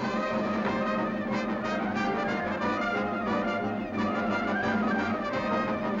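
Brass-led orchestral cartoon score, trumpets and trombones playing over a held low note.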